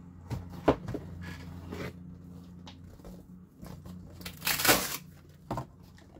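Craft supplies being rummaged through and handled: scattered light knocks and clicks, with a louder rustling scrape about four and a half seconds in, over a low steady hum.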